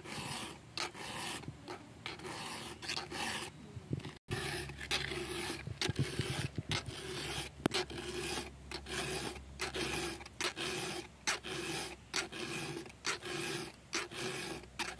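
Round chainsaw file rasping through the cutter teeth of a chainsaw chain on its bar, in steady repeated strokes about two a second, sharpening the chain.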